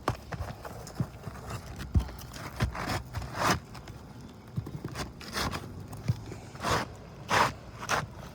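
Asphalt roof shingles scraping and rustling while a replacement shingle is worked in underneath the existing course, with scattered sharp knocks and taps.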